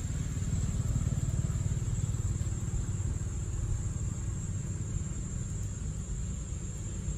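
A steady low background rumble, with a thin steady high tone above it.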